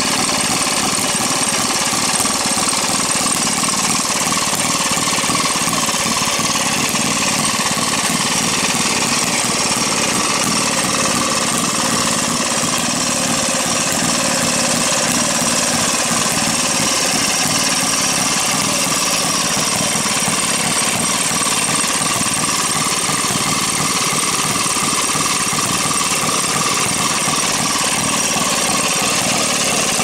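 Two vintage Maytag two-stroke washing machine engines running together, a steady, rapid, rattly firing.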